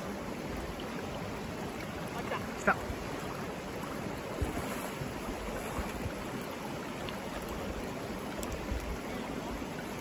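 Steady rush of a fast mountain stream running high and quick over a rocky bed, with one short sharp sound about two and a half seconds in and a smaller knock a couple of seconds later.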